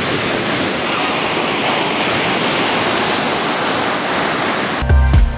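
Ocean surf breaking and washing up a sandy beach, a steady rushing of water. Near the end, music with heavy drum beats cuts in.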